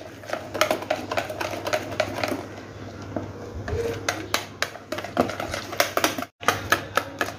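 Wire whisk beating besan (gram-flour) batter in a plastic bowl: a rapid, irregular clicking and tapping of the whisk wires against the bowl.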